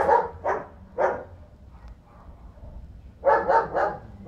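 A dog barking: single barks about once every half second at first, then a quick run of several barks about three seconds in.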